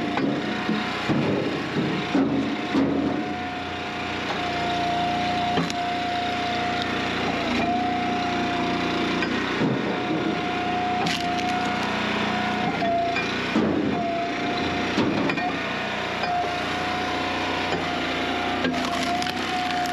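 Hydraulic firewood splitter running with a steady engine hum that dips briefly now and then under load, while logs crack and split apart with knocks and creaks several times.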